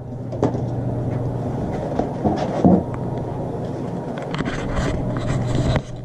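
Plastic lure packaging and a cardboard box rustling and clicking as tackle is handled, with a cluster of sharp clicks near the end. Under it runs a steady low hum.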